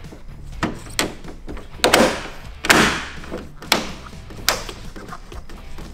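Plastic kidney grilles being pressed and snapped into the nose of a BMW E46: a series of sharp knocks and thumps, the loudest a pair of longer rattly pushes near the middle.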